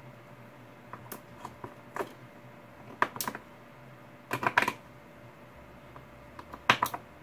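AA batteries being handled and pressed into a battery holder: a string of sharp plastic-and-metal clicks and short clatters, some single and some in quick clusters, about a second apart.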